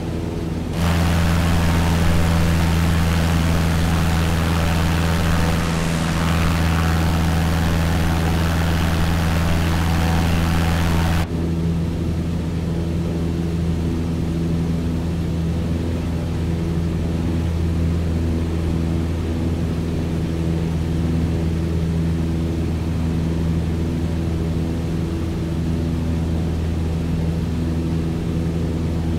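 Engine running at a steady speed with a constant droning hum. A loud rushing hiss joins it about a second in and cuts off suddenly about eleven seconds in.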